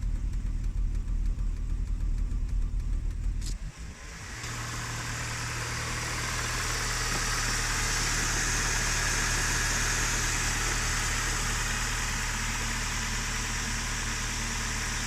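1998 Volvo V40's 1.8-litre four-cylinder B4184S engine running at idle with a steady hum. About three and a half seconds in there is a sharp click and a short drop, after which it runs on steadily with a strong hiss.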